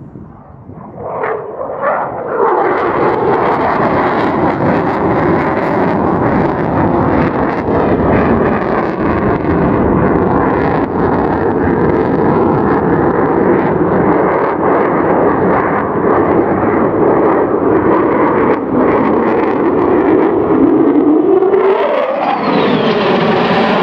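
F-35A fighter jet's single afterburning turbofan roaring past in flight. It swells in with a quick falling sweep about a second in, then holds a loud, dense, rocket-like roar, with a sweeping, phasing sound near the end as the jet passes.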